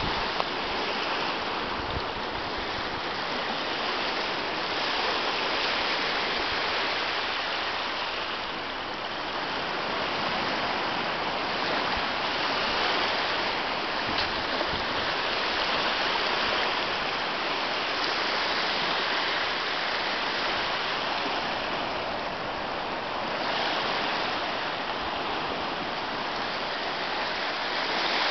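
Small sea waves breaking and washing up a sandy beach: a steady rushing that swells and eases gently every few seconds.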